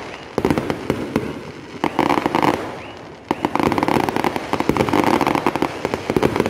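Aerial fireworks going off: rapid crackling and popping in dense clusters, a short burst early, another around two seconds in, and a long continuous run of crackles from about three seconds in.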